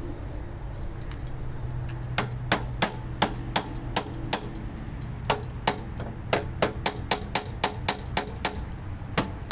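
A hammer tapping on the electric starter motor of a Tecumseh-engined Toro Snow Commander snowblower, about three sharp metallic taps a second from about two seconds in, with a short pause midway. Under it runs a steady low buzz from the starter, which buzzes without cranking: the taps are meant to free the stuck starter.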